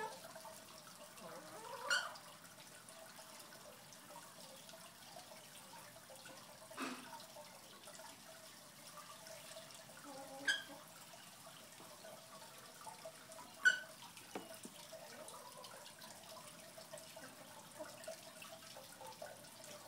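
A chicken sneezing: four short, sharp, squeaky sneezes several seconds apart, over a faint steady hum.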